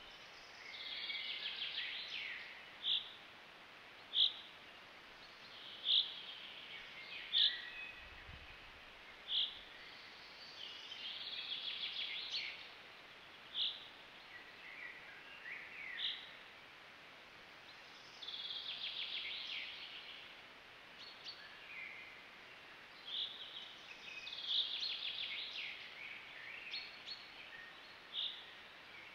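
Woodland songbirds singing. Several trilled song phrases a second or two long, with short single high notes between them every couple of seconds.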